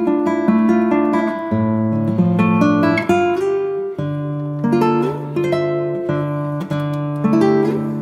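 Acoustic guitar music: a plucked melody with ringing notes over changing bass notes.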